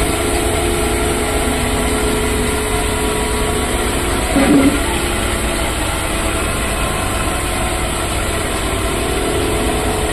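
Hydro-extractor spin dryer running steadily, its 2 HP three-phase electric motor spinning the drum with a constant mechanical hum and rumble. About halfway there is one brief louder sound over the hum.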